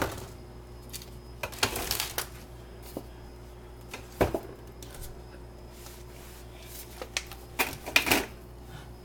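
Bottles knocking and clattering against refrigerator shelves and each other as a toddler puts them back, in a few short bursts of knocks with pauses between.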